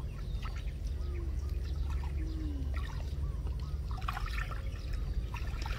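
Water trickling and lapping as a person moves in flood water, over a steady low rumble; a cluster of small splashes and drips comes near the end.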